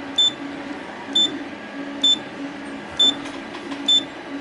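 Anycubic Photon S touchscreen beeping at each tap of the Z-axis move button: five short, high beeps about a second apart. A low hum comes and goes between the beeps as the Z-axis stepper motor lowers the build plate.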